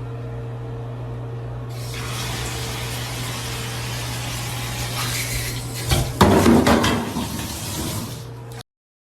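A steady low hum, joined about two seconds in by a steady rushing hiss like running water or spray, which gets louder and rougher around six to seven seconds in.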